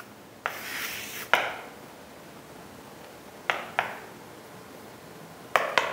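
Writing on a surface during a pause in a maths lesson: a short scratchy scribble about half a second in, then a handful of sharp taps, two of them close together near the end.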